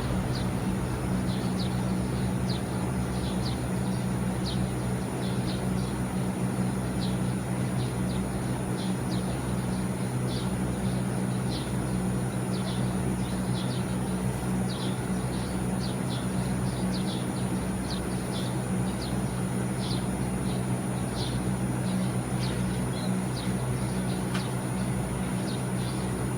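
TECO MS-LV36IH inverter air conditioner running with a steady low hum and a thin, very high whine, over which short high chirps repeat irregularly about once or twice a second. This is an abnormal electrical noise, likened to cicada or bird calls.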